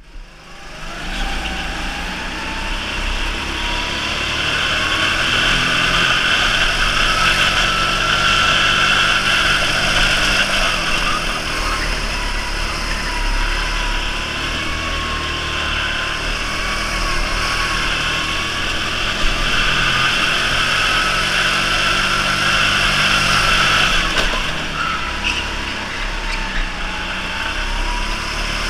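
Electric go-kart heard from the driver's seat: the motor's whine rises in pitch as the kart speeds up and dips as it slows, several times over, above a steady rush of tyre and wind noise.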